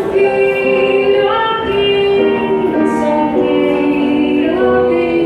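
Music from a live band: a slow melody of long held notes, stepping from one pitch to the next.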